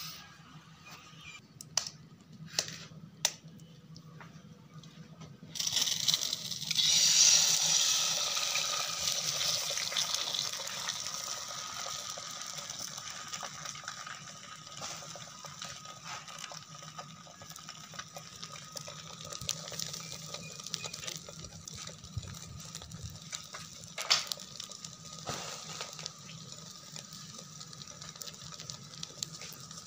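A few sharp taps, then about five seconds in an egg lands on a hot iron tawa and sizzles loudly, the sizzle slowly dying down as it fries.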